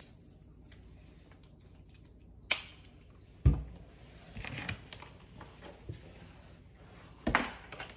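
Golden retriever puppy shifting and rolling over on a hardwood floor: a few scattered soft thumps and clicks, the heaviest about three and a half seconds in and another near the end.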